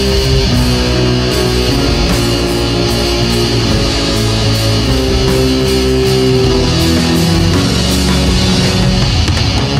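Heavy metal music: electric guitars and bass play held chords that change every second or so, dense and loud throughout.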